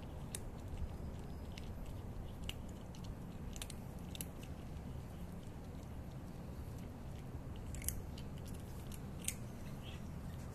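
Cat chewing dry kibble: scattered sharp crunches at uneven intervals, with two louder crunches near the end.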